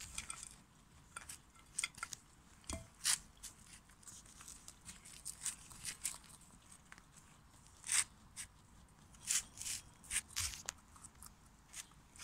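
A rabbit chewing and nibbling fresh salad vegetables and hay: short, crisp crunches at an irregular pace, with a few louder bites standing out.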